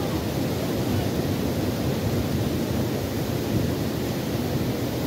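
Steady rushing of a shallow rocky river running over stones and small rapids, an even noise with no breaks.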